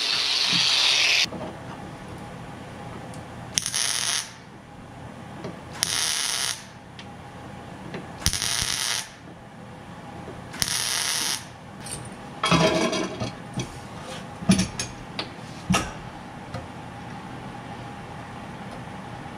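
An angle grinder on sheet metal stops about a second in. A handheld air tool then runs in four short bursts against the car's quarter panel, followed by a string of sharp metal clanks and knocks as the panel is pried with a steel bar.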